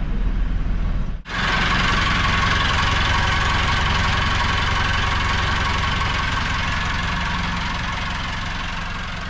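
Sailboat's inboard engine idling steadily, first as a low hum, then, after a sudden break about a second in, heard close up with a louder clatter. The sound slowly fades away near the end.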